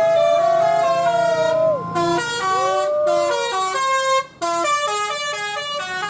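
Telolet basuri musical bus horn playing a tune: bending notes that swoop up and down, then a run of short stepped notes, with a brief break a little past four seconds in.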